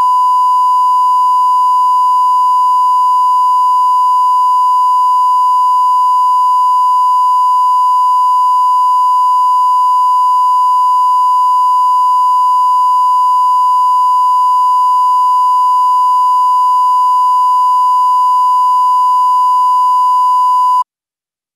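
Steady 1 kHz broadcast line-up tone played with colour bars, a single unchanging pure beep. It cuts off abruptly just before the end.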